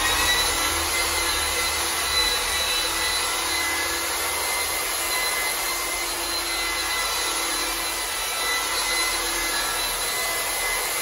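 Corded rotary polisher running at a steady speed with a high whine, its foam pad buffing compound into a car headlight lens.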